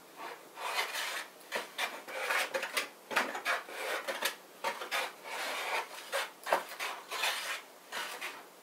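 Wood River bench plane, a Bedrock-style hand plane, taking a rapid series of short strokes across a wooden board. Each pass makes a rasping, hissing shave as the blade cuts.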